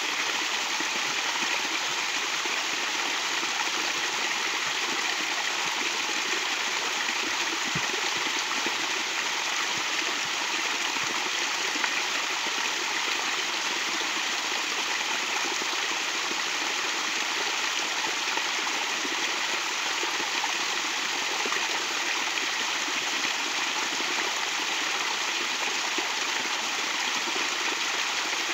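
A small stream falling over rocks in a little cascade, splashing steadily with an even rush of water.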